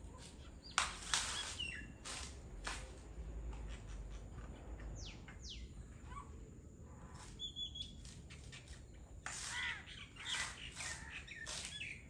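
Common myna calling in bursts of harsh, rasping notes mixed with whistles, including a couple of falling whistles about five seconds in; the busiest run of calls comes near the end.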